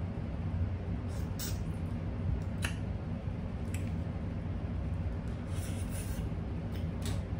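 Crab leg shells cracking and snapping as the meat is picked out by hand: a few short, sharp crackles spread through, over a steady low hum.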